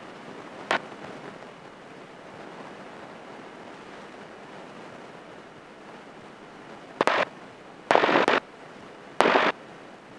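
Steady hiss on a light aircraft's headset intercom during taxi. There is a click about a second in, then three short, loud bursts of noise in the last few seconds, each starting and stopping abruptly.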